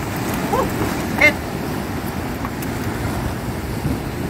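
Surf breaking and washing against a breakwater's concrete blocks, a steady rushing wash with wind on the microphone. Two brief, short pitched calls sound about half a second and a second in.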